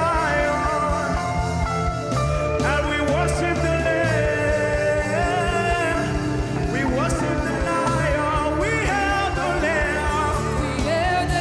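Live gospel worship music: a singer's voice gliding and bending over keyboard chords and a steady drum beat.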